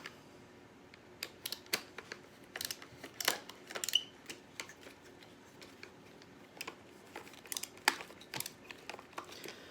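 Irregular sharp clicks and taps of a screwdriver against a screw and the plastic of a washing machine drain pump assembly as the screw is driven in.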